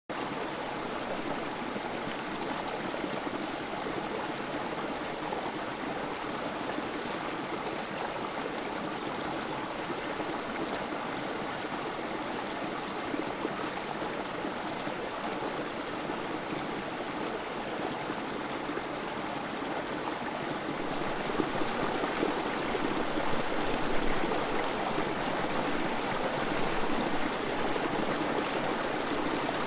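A small creek's water trickling and splashing steadily over a rock ledge in a low cascade. It grows somewhat louder, with a few sharper splashes, after about twenty seconds.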